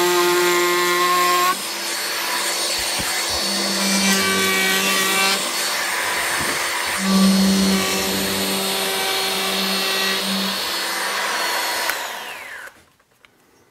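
Bosch 12 V cordless edge router with an 8 mm round-over bit running and cutting a radius along the edge of an oak tabletop. Near the end it spins down with a falling whine.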